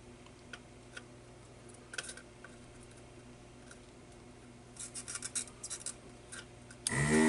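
Faint clicks and scrapes of small hand tools working a component on a circuit board, with a quick run of ticks about five seconds in. A low steady hum runs underneath, and a short voice sound comes at the very end.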